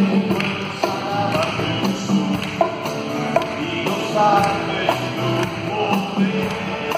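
Live worship band playing an instrumental passage: drum kit, bass guitar, keyboard, violin and acoustic guitar, with a steady percussive beat and a short melodic line above.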